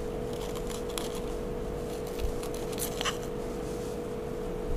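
A kitchen knife cutting around the top of a green capsicum (bell pepper), a few faint crisp crunches and clicks as the blade goes through the flesh. A steady hum runs underneath.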